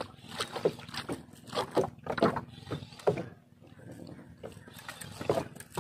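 Speed-jigging with a rod and fishing reel: the reel is cranked in quick bursts as the rod is jerked, giving sharp strokes about two or three a second, then a lull about three seconds in and one more stroke near the end.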